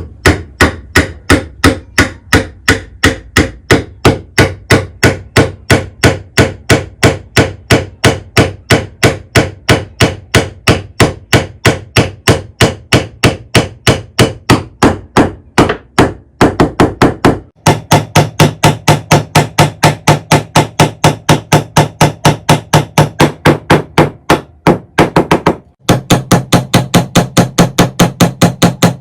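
Rapid, evenly spaced knocks of a hammer or mallet on wood, about three to four a second, with two short breaks. After the first break the strikes take on a lower, more ringing tone.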